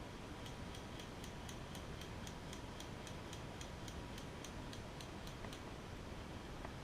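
Faint, even ticking, about four ticks a second, over a steady hiss; the ticking stops about five and a half seconds in.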